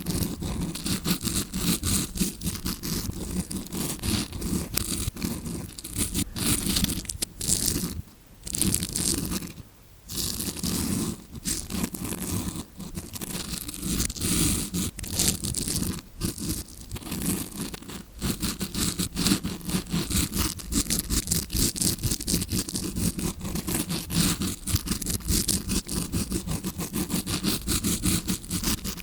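Tawashi scrubbing brush scratched against the microphone to imitate ear cleaning heard from inside the ear: dense, rapid, bristly scraping strokes, with two short pauses about eight and ten seconds in.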